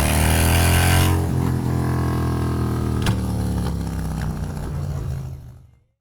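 Harley-Davidson motorcycle V-twin engine running, its revs dropping about a second in, then holding a steady note. A sharp click comes around the middle, and the sound fades out near the end.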